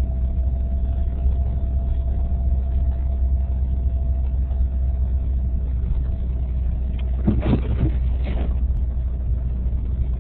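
Road noise inside a moving car: a steady low rumble with a faint steady whine over it. A brief, louder burst of sound comes about seven seconds in.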